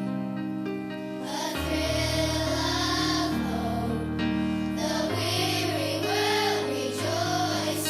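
Christmas music performed live: voices singing with vibrato over instrumental accompaniment, with a low bass line that holds each note for a second or two before moving on.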